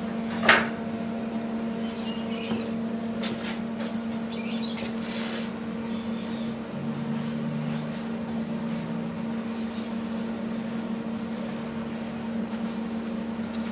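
Welding machine switched on and humming steadily. A sharp knock comes about half a second in, with a few fainter clatters over the next few seconds.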